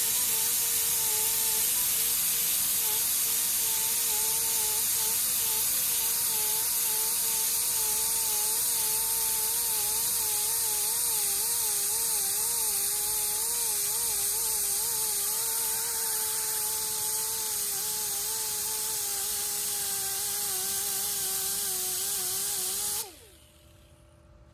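Electric power sander with an abrasive disc grinding the curb-rashed edge of an alloy wheel: a steady motor whine that wavers slightly in pitch, over a strong hiss of abrasion. The tool switches off near the end and its whine falls away as it winds down.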